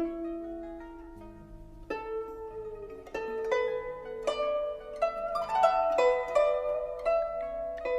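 Guzheng playing a slow melody: single notes plucked and left to ring, some of them bent in pitch, with a denser flurry of notes in the middle.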